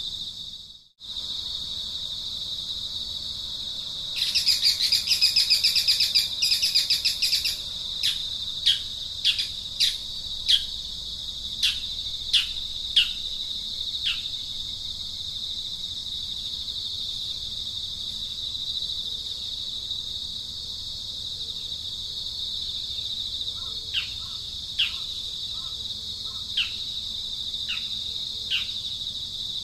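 A steady, high insect drone runs throughout, briefly cutting out about a second in. Over it a bird gives a fast trill about four seconds in, then a string of short, downward-sliding whistled notes about one a second, with a few more near the end.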